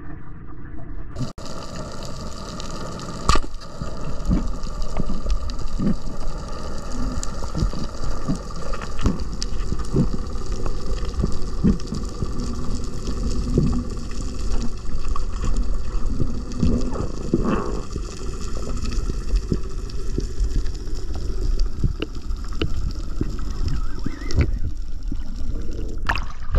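Underwater audio picked up through a camera's waterproof housing while diving: a steady muffled rumble of moving water with scattered clicks and knocks, one sharp knock about three seconds in.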